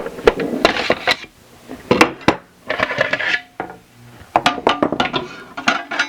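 Clicks, clacks and light clinks of a guide rail square and cam clamp being handled and fitted onto a track saw guide rail, in several short clattering clusters.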